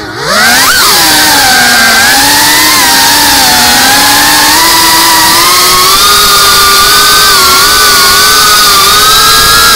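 Geprc CineLog35 cinewhoop's brushless motors and ducted propellers whining loudly, the pitch following the throttle. Right at the start the throttle is chopped: the whine drops sharply in pitch and level, then climbs back within about half a second. It then holds a steady, slowly rising whine as the quad flies on.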